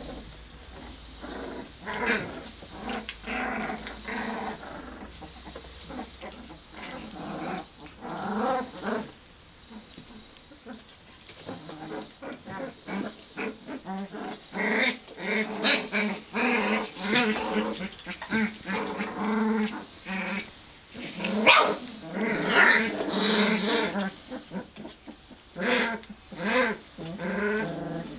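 A litter of young puppies growling, yipping and whining as they play-fight, in quick runs of short squeaky calls that get busier and louder about halfway through.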